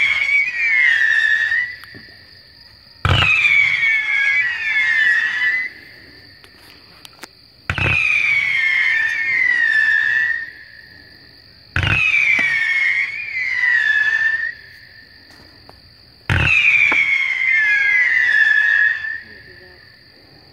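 NEON 49-shot double-whistling firework cake firing in volleys about every four to five seconds. Each volley is a sharp launch thump followed by shrill whistles falling in pitch in two waves, about two and a half seconds in all.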